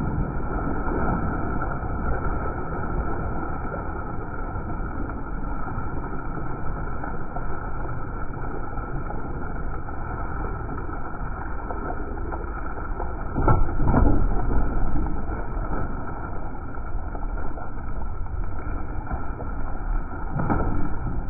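Steady low rumble and wash of a boat's engine and the water around it, swelling louder about two-thirds of the way through and again near the end.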